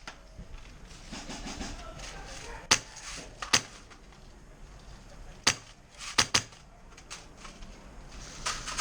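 Scattered sharp snaps of airsoft fire during a skirmish: single shots a second or two apart, with a quick run of three about six seconds in.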